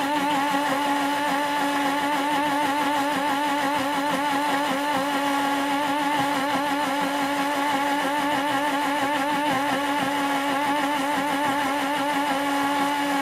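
BlendyGo 3 portable blender's motor running steadily, blending milk and fruit into a drink: a continuous whine whose pitch wobbles slightly.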